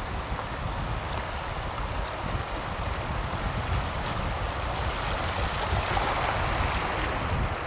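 River water flowing steadily, a continuous rushing that swells slightly near the end, with wind rumbling on the microphone.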